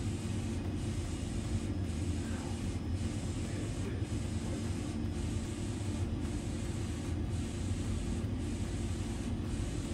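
Wide-format DTF printer with Epson print heads running a print job: a steady whirring hiss over a low hum, with a faint regular change about once a second as the print carriage sweeps across.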